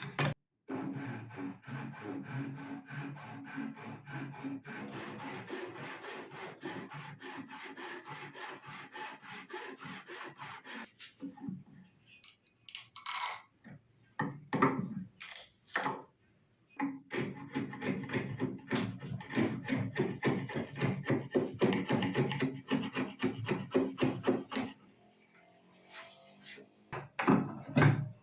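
A hand tool worked back and forth on wood in quick, even strokes, in two long runs with a few single scrapes between and near the end.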